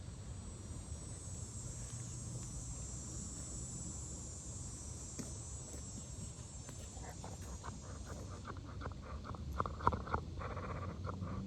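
Insects trilling steadily at a high pitch, stopping about eight and a half seconds in, over a low steady rumble. From about seven seconds in, a run of light clicks and rustles.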